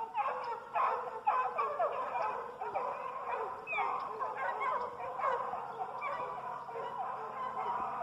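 A pack of hunting hounds baying and bawling on a trail, many short overlapping calls at once. A faint steady low hum joins about halfway through.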